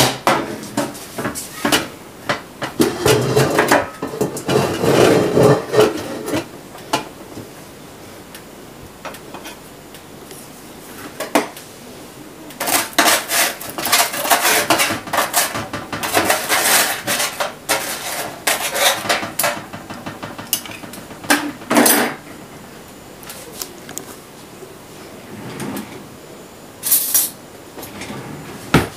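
A metal baking tray clattering as it is handled and set down, then a knife scraping and cutting through dry toasted bread on the tray in several bursts, the blade knocking against the metal.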